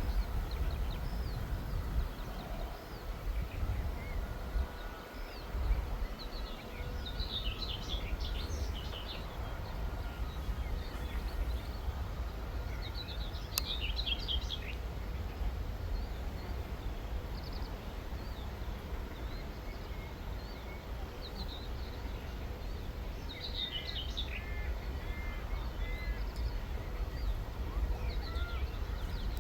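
Outdoor background: songbirds chirping in short bursts every few seconds over a steady low rumble.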